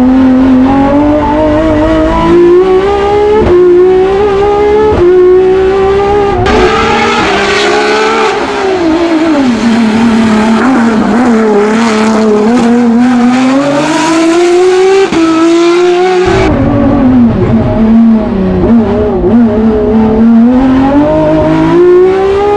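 BMW S38 straight-six race engine, de-stroked to 3.3 litres and revving to about 10,500 rpm, driving the car hard under full load. Its pitch climbs, steps and drops back again and again through gear changes and corners. It is heard from inside the cabin, except from about six to sixteen seconds in, where it sounds brighter and thinner with less low end.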